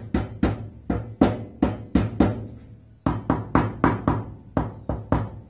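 Repeated hammer taps on laser-cut acrylic parts, about three knocks a second with a short break midway, driving tight tab-and-slot joints together.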